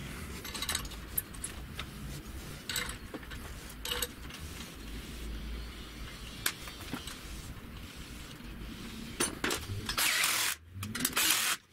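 Light metallic clicks and clinks as nuts and bolts are fitted by hand to a steel sprocket. Near the end, a drill with a socket in its chuck runs in two short spurts to spin the nuts down.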